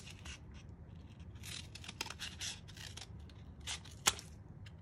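Scissors cutting through a cardboard paper towel tube, two layers at once: several short snips in clusters, with a sharp click just after four seconds in, the loudest sound.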